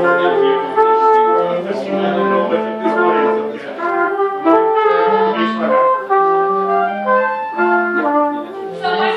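Brass band playing a cumbia tune together: horns carry a melody of held notes over a low bass line, all coming in at once at the start.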